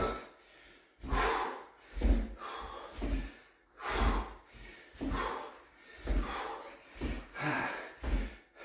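A man's heavy breathing during skater jumps, a hard breathy exhale with each side-to-side bound, over the low thud of his trainers landing on the floor, about one landing a second.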